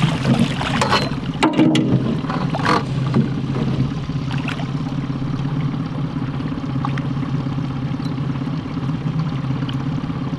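Boat's outboard motor idling steadily, with water splashing and sloshing around a landing net held in the lake during the first few seconds.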